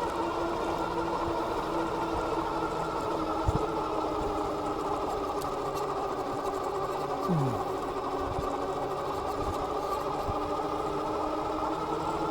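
Dual electric hub motors of a Philodo H8 all-wheel-drive e-bike whining steadily under power while riding. There is a short knock about three and a half seconds in and a brief falling tone near the middle.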